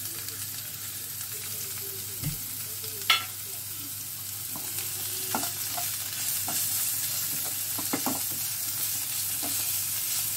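Chopped onion sizzling in hot oil with cumin seeds in a non-stick kadai, stirred with a silicone spatula with light scraping strokes. The sizzle grows a little louder about halfway through. A single sharp knock comes about three seconds in.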